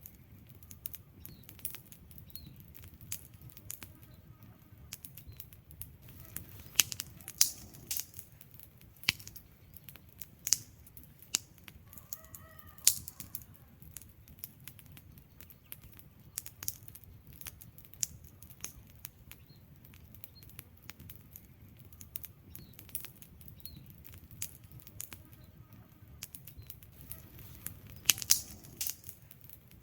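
Wood fire burning with irregular sharp crackles and pops over a low steady rumble of flames, the loudest pops clustered around the middle and near the end.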